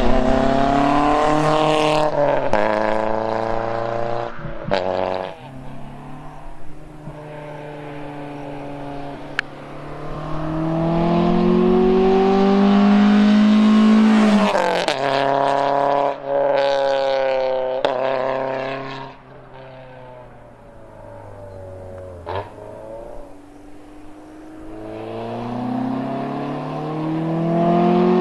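Peugeot 206 with an aftermarket Magnaflow exhaust driving past under acceleration. The exhaust note climbs in pitch as it revs, drops sharply at the shifts, fades as the car goes away, and swells again as it comes back near the end.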